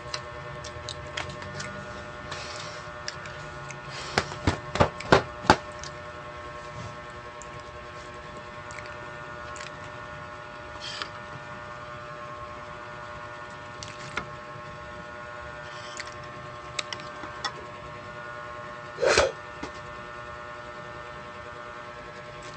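Close-miked eating and handling sounds: scattered sharp clicks and taps, with a quick run of louder clicks about four to five seconds in, over a steady electrical hum. A short burst of voice comes near the end.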